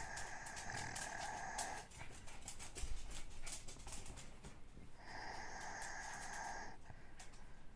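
A person snoring: two long wheezy breaths, one at the start and another about five seconds in, with faint clicks between them.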